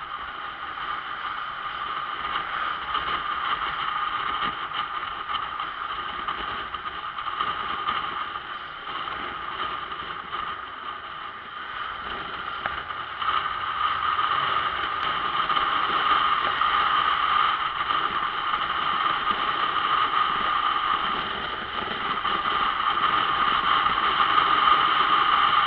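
Steady rush of wind over an on-board camera microphone on a sport motorcycle being ridden at about 40 km/h, with the engine running underneath; it grows louder about halfway through.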